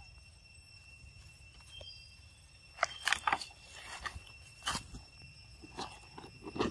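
Footsteps crunching and rustling in dry fallen leaves, in scattered bursts from about three seconds in, over a steady high-pitched insect drone.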